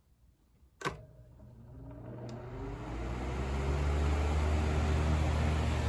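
Cool Breeze 12-inch oscillating table fan started on high: a switch click about a second in, then the motor hums and the whir rises in pitch and loudness as the blades spin up, levelling off into a steady run.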